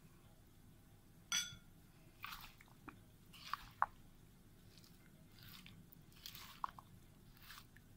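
Spatula scraping fruit cocktail out of a small glass bowl into a creamy salad and stirring it in: a short ringing clink of the glass about a second in, then faint wet squelches and light clicks.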